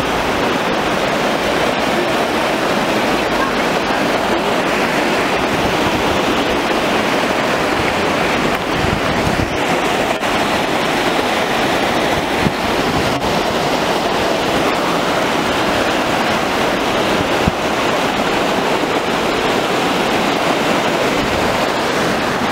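River Aire in flood: fast, turbulent floodwater rushing and churning past in a steady, loud wash of water noise.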